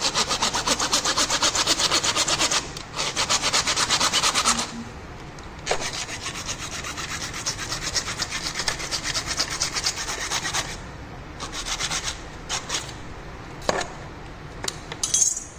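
Hand saw cutting cable duct with rapid back-and-forth strokes. Two long runs of sawing with a short break between them, then a few separate strokes near the end.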